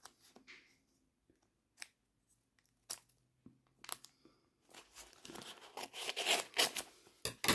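A paper envelope being handled and then torn open: a few light paper clicks, then about three seconds of tearing and crinkling paper near the end.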